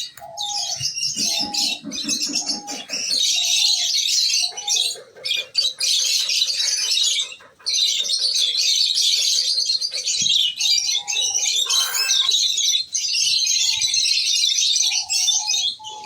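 A colony of lovebirds chattering and screeching together in a dense, near-continuous din. A short lower call repeats several times in the first few seconds.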